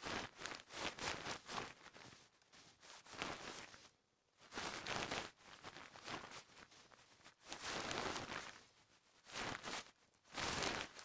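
Synthesized clothing sounds: a jacket and trousers rustling and swishing in repeated bursts with the wearer's movements, with short quiet gaps between them. The sound is assembled by concatenating tiny snippets of recorded cloth sounds, driven by the cloth animation's motion.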